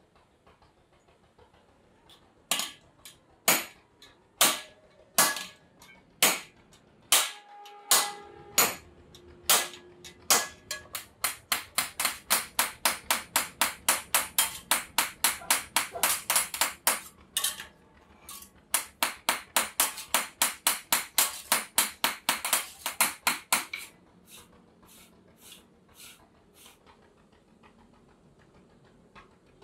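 Hammer blows on a truck clutch disc resting on a steel anvil block. At first there are single strikes about a second apart, some leaving a short metallic ring. Then come two fast runs of about three blows a second with a brief break between them, and a few lighter taps near the end.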